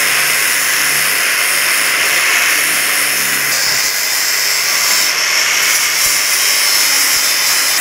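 Electric angle grinder with a multi-layer abrasive sanding disc grinding rust and paint off the edge of a sheet-metal door, running at a steady whine with a grinding hiss.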